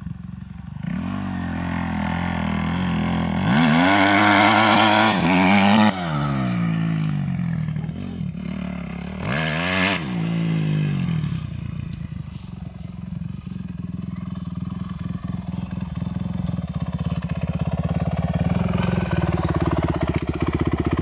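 Kawasaki 250 cc motocross bike engine, revving up hard twice as it rides off, a few seconds in and again about halfway, each time rising in pitch and then dropping away. It then runs steadily, growing louder near the end as the bike is close by.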